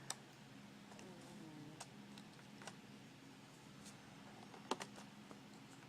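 Faint, scattered small plastic clicks and taps as a laptop keyboard's ribbon cable is worked into its connector, the sharpest pair a little before the end.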